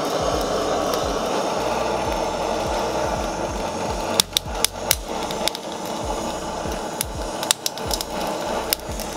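Handheld kitchen blowtorch flame hissing steadily as it browns scallops in the shell. From about four seconds in the hiss is weaker and a scatter of sharp clicks comes through.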